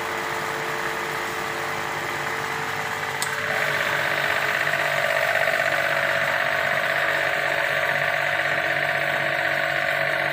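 A motor running steadily with a hum of several held tones; about three seconds in a click is followed by a louder, higher-pitched hum that then holds steady.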